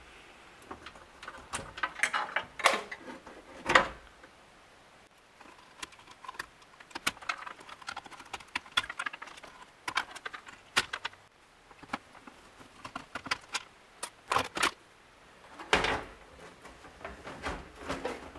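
Wire bundles, plastic connectors and a sheet-metal panel being handled inside a claw machine cabinet: scattered clicks, rattles and knocks, the sharpest about four seconds in and again around fifteen seconds in.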